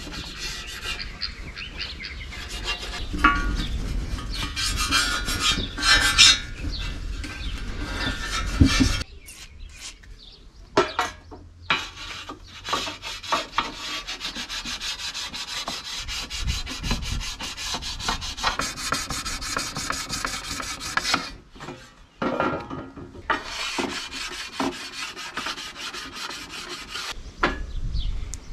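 Hand tool scraping and rasping over the aluminium lower oil pan's flange and bolt holes, cleaning up the metal in quick repeated strokes, with short pauses about nine seconds in and again a little past twenty seconds.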